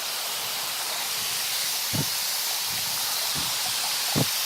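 Steady hiss of a small waterfall and cascading creek water, with two dull low thumps, about two seconds in and again near the end.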